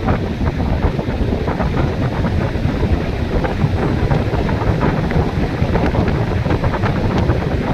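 Wind buffeting the microphone of a moving vehicle, a loud steady rumble with road and engine noise under it.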